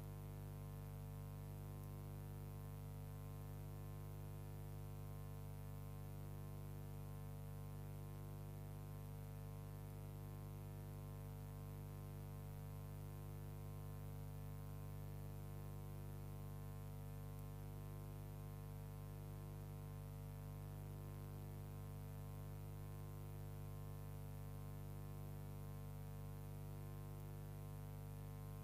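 Steady electrical hum with many overtones, unchanging throughout; nothing of the locomotive or the turntable is heard.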